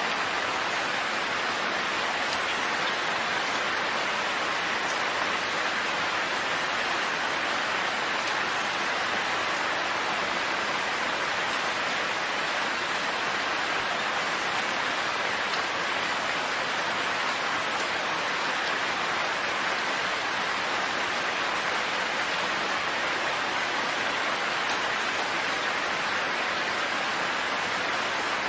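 Steady, dense rain falling, an even hiss of drops with no thunder.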